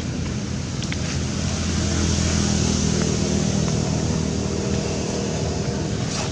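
A motor vehicle engine running steadily, growing a little louder about two seconds in, over a hiss of traffic noise.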